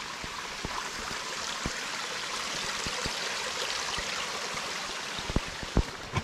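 Water of a small rocky stream running steadily, with a few sharp knocks near the end.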